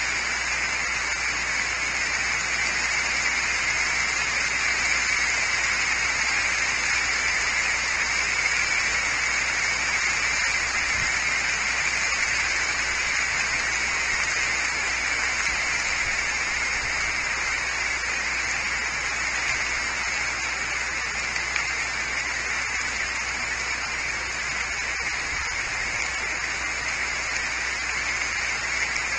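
Steady rain falling on a leafy tree canopy, an even hiss that does not change.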